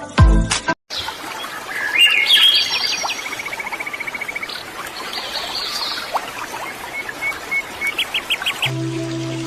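Several birds calling and chirping over a steady outdoor hiss, including one rapid trill and a quick run of five short high notes. Music cuts out about a second in and comes back near the end.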